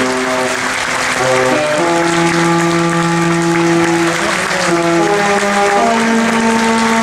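An audience applauding over slow music of long held notes, the chords shifting every second or two.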